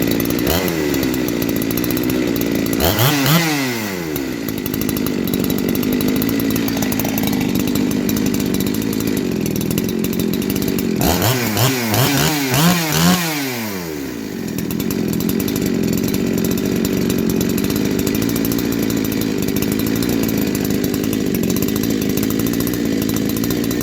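Two-stroke chainsaw engine of a Husqvarna 372XP clone idling steadily on its old carburettor. The throttle is blipped once about three seconds in and revved several times between about eleven and fourteen seconds, each rev dropping back to a steady idle.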